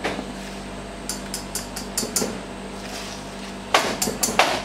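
A scraper working thick chocolate cake batter out of a stainless steel mixing bowl: a quick run of short scrapes, then two sharp metal knocks near the end.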